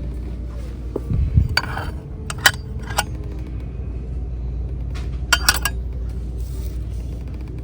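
Dishware clinking as pieces are handled and set down: a few separate clinks with short ringing, over a steady low hum of store background.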